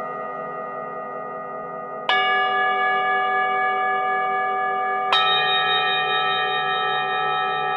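Singing bowls struck twice, about two and five seconds in, each strike ringing on in long wavering tones over the still-sounding earlier ones.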